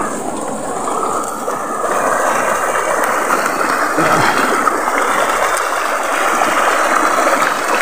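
Shallow, fast-flowing stream rushing and gurgling over rocks close by: a steady, loud rush of water.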